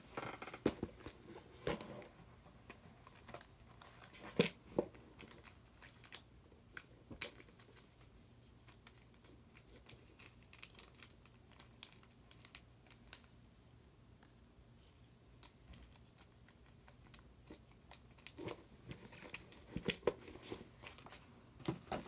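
Light handling noises at a repair bench: scattered sharp clicks and taps with some rustling. They are busiest in the first couple of seconds, loudest about four to five seconds in, and pick up again near the end.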